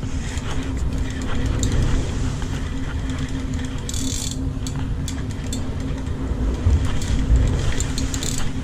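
Spinning reel being cranked steadily, its gears whirring with small clicks as line is wound in from deep water, over the steady low drone of the ship.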